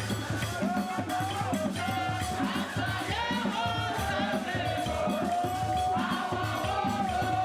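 Music with a steady beat and a sustained, wavering lead melody.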